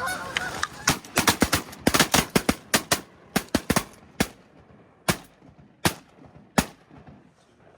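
Volley of shotgun shots from several hunters firing at once: a rapid, overlapping barrage for the first few seconds, then single shots trailing off about a second apart.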